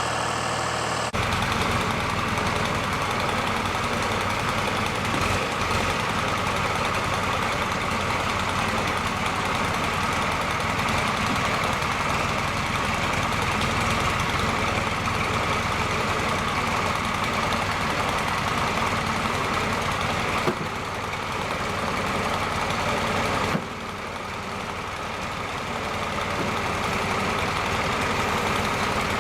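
Engine of a 1972 John Deere backhoe running steadily while it works with forks chained to its loader bucket. The sound changes abruptly about a second in and twice more near the end, where clips are joined.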